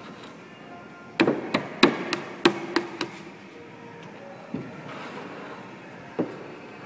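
Hardwood door jamb pieces knocked together as the dowelled side jamb is pushed into the rabbet of the head jamb: a quick run of about eight sharp wooden knocks, then two single knocks later on.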